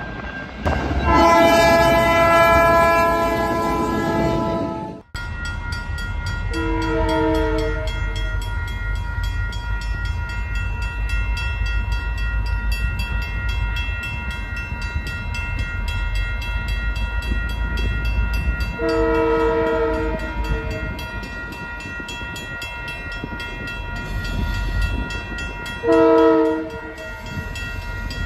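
A diesel locomotive horn sounds a long chord, cut off sharply about five seconds in. Then a freight train rumbles past a level crossing while the crossing bell rings, and the lead locomotive's horn sounds three more chords: about a quarter of the way in, about two-thirds of the way, and near the end.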